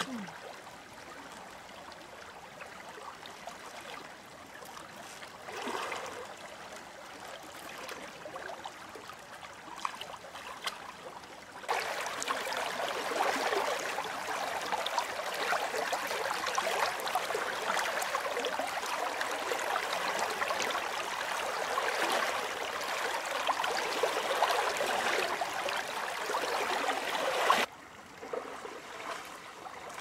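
Shallow river current flowing and rippling, with small splashes from hands working through the water. Partway through, the rushing water becomes much louder and closer, then drops back suddenly near the end.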